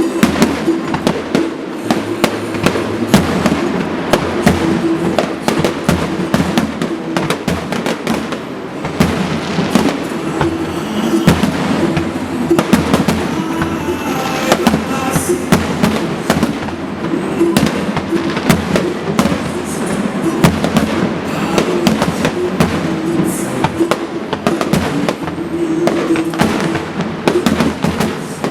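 Fireworks going off in a rapid, continuous barrage of bangs and crackling, with music playing underneath.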